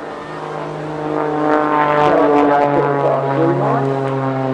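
Pitts aerobatic biplane's engine and propeller droning overhead, getting louder to a peak about two seconds in, with a sweeping, shifting tone as it passes. The pitch steps down a little about three seconds in.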